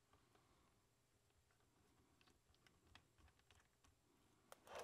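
Near silence with faint, scattered small clicks of a precision screwdriver working tiny screws out of a camera lens, a few sharper clicks near the end.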